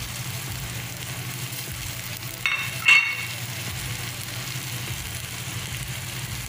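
Pork, shrimp paste and vegetables frying in a stainless-steel pan with a steady sizzle. About two and a half seconds in, a sharp ringing metallic clink.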